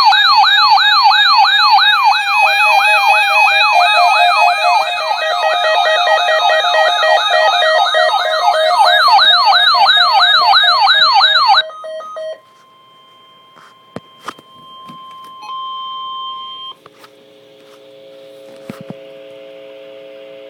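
Emergency alert test signal: several loud electronic siren tones wailing up and down together a few times a second, cutting off suddenly about twelve seconds in. Quieter steady alert tones follow, first a single tone, then a low chord of held tones.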